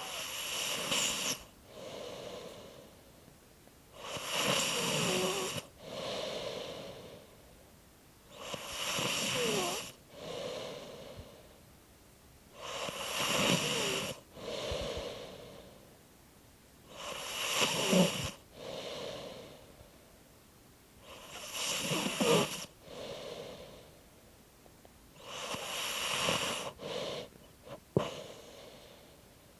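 Snoring, seven snores about four seconds apart, each a louder part followed by a softer one, with quiet squeaks in the breath. A short click near the end.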